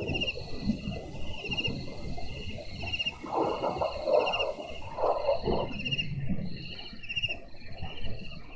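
Thunder rumbling, swelling about three seconds in and again soon after, under a steady night chorus of short, rapidly trilled calls repeating many times over.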